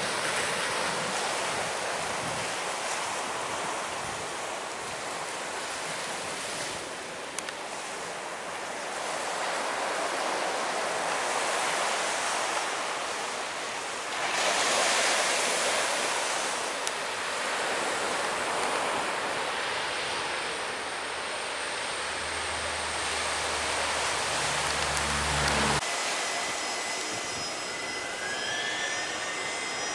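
Lockheed C-130 Hercules four-engine turboprop flying low on approach to land, its engine and propeller noise swelling loudest about halfway through, over surf and wind. In its last seconds a deep steady propeller hum comes in, then cuts off suddenly near the end, and the thin whine of a jet airliner's engines follows.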